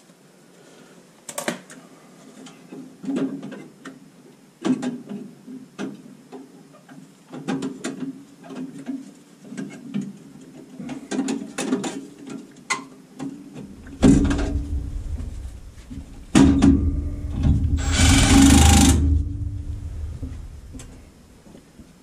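Scattered clicks and light metal knocks of hands working on furnace gas valve parts and wiring, then a cordless driver running in two long stretches about two thirds of the way in, loudest near the end.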